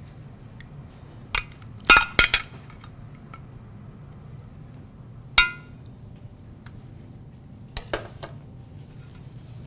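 Kitchen utensils and cookware clinking: a few sharp clinks, a loud cluster about two seconds in, a single ringing clink a little past five seconds, and a couple more near the end.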